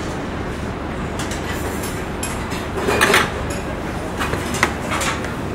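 Steady kitchen background noise. A few short clatters of plates and utensils on a stainless steel counter stand out over it, the loudest about three seconds in.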